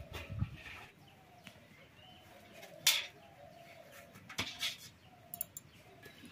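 Two sharp knocks, about three and four and a half seconds in, as a slaughtered chicken is handled in a metal basin of hot water for scalding. A bird calls faintly and repeatedly behind it.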